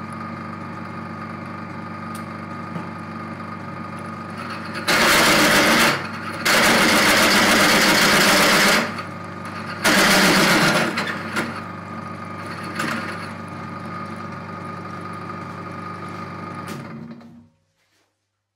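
Restored 1979 Soviet bench drill press running with a 28 mm twist drill. The motor hums steadily, and three loud stretches of cutting noise come as the bit is fed into metal. The motor cuts off and runs down near the end.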